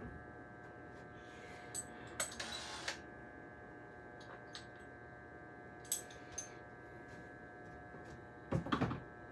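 Light metallic clicks and rattles from screws and door-closer bracket hardware being handled, with a short rustle about two seconds in and a heavier knock near the end.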